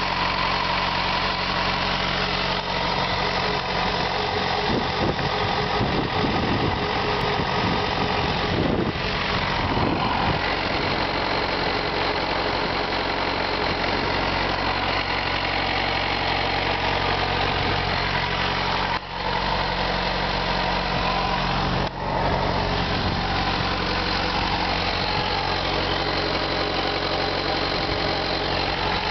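Yamaha FZ6's inline-four engine idling steadily, with the ticking noise its owner is showing.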